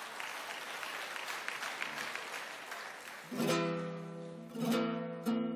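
Audience applause, then from about three seconds in a plucked string instrument strums chords, each chord struck sharply and left ringing, a few strums about a second apart.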